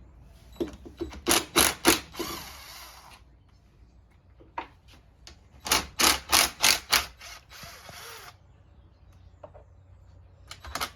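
Cordless drill backing out KX85 engine case bolts: two bursts of several loud sharp clicks, each followed by about a second of whirring as a bolt spins free.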